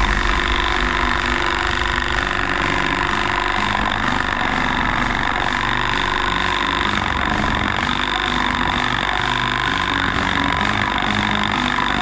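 Steady motor drone of a pole-mounted olive harvester running as its comb works through the branches.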